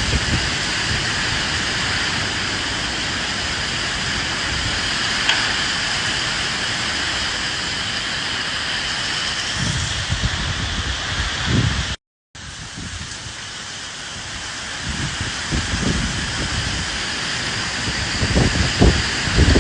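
Steady hiss of heavy rain with low gusts of wind rumbling in now and then. About twelve seconds in, the sound cuts out completely for a moment, then returns quieter and builds back up.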